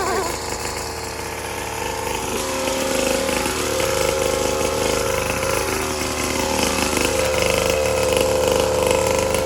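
Small mini moto engine running at a steady pitch, a little louder from about two and a half seconds in.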